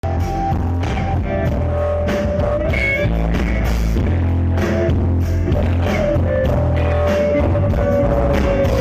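A live rock band playing loudly through a PA during a sound check: electric guitar holding long lead notes over bass and a drum kit.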